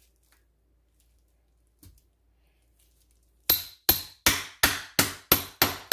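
Metal meat tenderizer pounding a raw chicken thigh on a plastic cutting board: a run of about eight sharp, evenly spaced strikes, about three a second, starting about three and a half seconds in.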